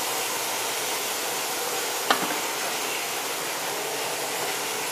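Steady hissing noise, with one sharp knock about two seconds in.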